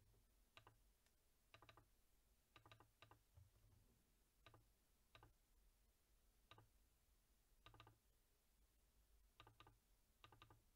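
Faint computer mouse clicks, many in quick pairs, about every second: double-clicks opening folders in a file browser.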